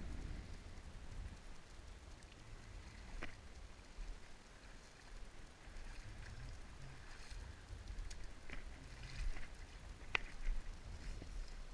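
Shallow river water lapping and sloshing under a low, steady rumble, broken by a few sharp clicks and snaps of dry driftwood branches being handled. The loudest snap comes about ten seconds in.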